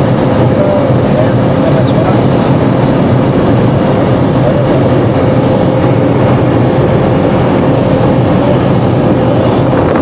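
Steady, loud cabin noise of a Cessna Caravan amphibian's turboprop engine and propeller in flight, heard from inside the cabin, with a steady droning tone over a dense rushing noise.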